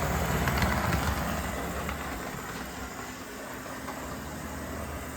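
HO-scale Proto 2000 diesel locomotive model running along layout track on DC power: a steady motor and gear whir with wheels rolling on the rails, somewhat noisy for the brand, which the owner suspects needs a clean and lube. It drops a little in level after about two seconds.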